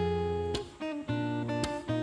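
Background music: an acoustic guitar strumming chords, a new chord about every half second.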